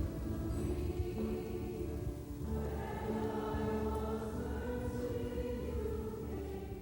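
A choir singing a hymn together, in long held notes.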